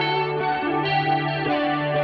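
Background music: guitar with effects, sustained chords over a steady bass note.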